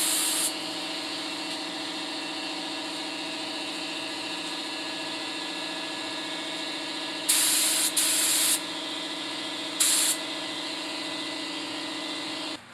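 Paint spray rig spraying water-based pigmented lacquer: a steady motor hum under loud bursts of spray hiss each time the gun is triggered, one ending about half a second in, two short ones back to back about seven and eight seconds in, and one more near ten seconds. The hum cuts off suddenly near the end.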